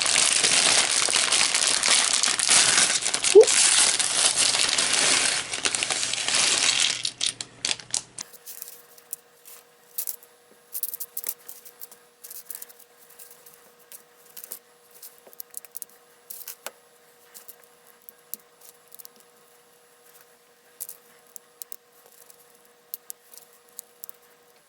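Plastic packaging of a Lego polybag set crinkling and tearing as it is opened, loud and continuous for about the first eight seconds. It then cuts to sparse clicks and clatters of small Lego pieces being handled and snapped together over a faint steady hum.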